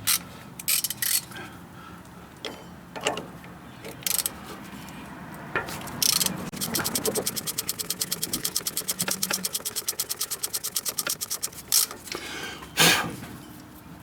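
Ratchet wrench on a 14 mm sway-bar link nut: scattered metal clinks as the tool is fitted, then about five seconds of rapid, even ratchet clicking from about halfway in, and a couple of sharper knocks near the end.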